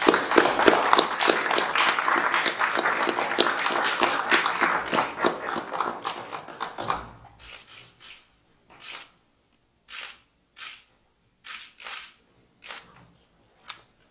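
Audience applauding, then dying down about seven seconds in. After that come scattered single clicks, a second or less apart.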